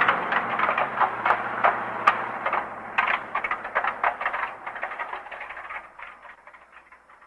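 Modified car driving away: its engine drone fades within the first second or so, leaving a run of irregular exhaust pops and crackles that grow fainter and die away.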